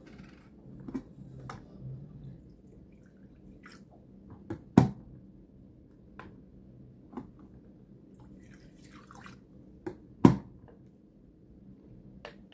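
Plastic water bottles being handled on a desk: scattered crinkles and small clicks, with two sharp knocks, about five and ten seconds in.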